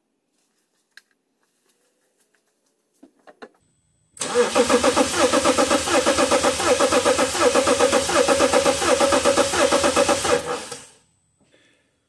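Car engine cranking on its starter for about six seconds without starting, in a fast, even pulse, then stopping. The mechanic takes the test made during this cranking to show a cylinder with no compression (a dead hole), which he puts down to bottom-end damage such as a holed or cracked piston.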